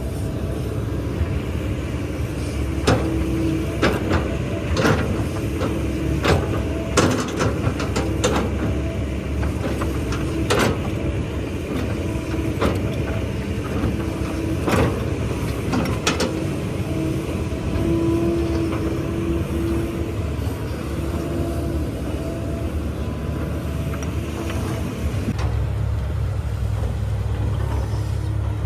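Hydraulic excavator's diesel engine running steadily, with a string of sharp knocks and clanks between about 3 and 16 seconds in.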